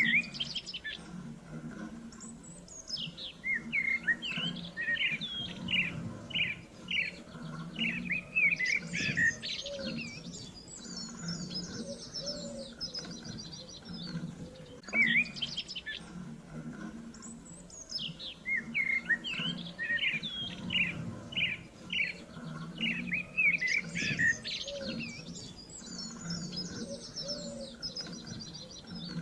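Birdsong: several birds chirping and trilling in quick runs of short rising and falling notes, with the same passage repeating about every fifteen seconds over a low steady hum.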